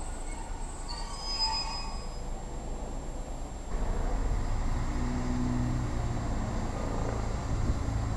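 Diesel multiple units at a platform: a Class 150 approaching with a low rumble and a few faint high squeals, then, switching abruptly about four seconds in, the louder steady hum of a Class 168 Clubman's underfloor diesel engines running.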